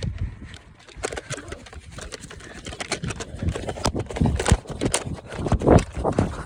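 Hurried footsteps on the ground, with jostling and rustling, growing louder and busier about three seconds in.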